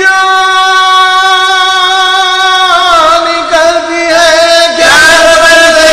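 A marsiya reciter's voice chanting an elegy, holding one long note for nearly three seconds, then sliding into a wavering, ornamented phrase.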